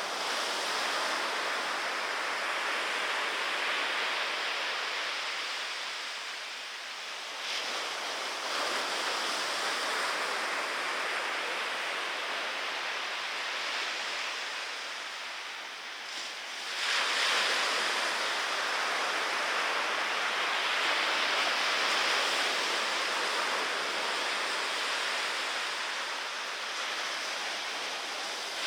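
Ocean surf: small typhoon-swell waves breaking and washing. Three surges come in suddenly, at the very start, about a third of the way in and a little past the middle, and each slowly dies away.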